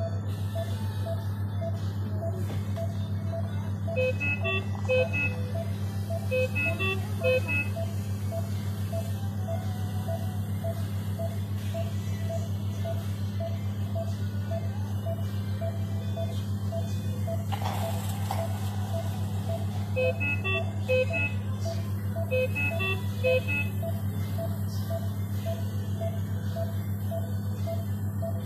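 Bedside patient monitor beeping regularly, about one and a half short beeps a second, over a steady low electrical hum. Twice, a few seconds in and again about two-thirds of the way through, a quick run of higher and lower alarm-style tones sounds over the beeps.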